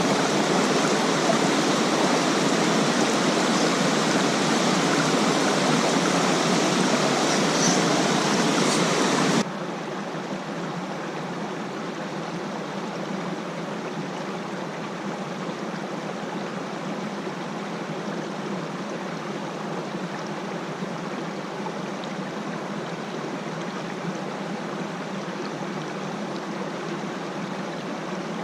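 Rushing water of a small mountain waterfall, a steady noise that drops suddenly to a quieter level about nine and a half seconds in.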